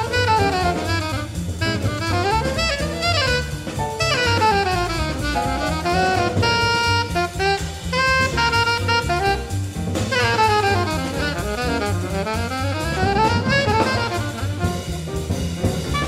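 Alto saxophone soloing in fast bebop runs that sweep up and down, with a few held and repeated notes midway, over drum kit and upright bass accompaniment.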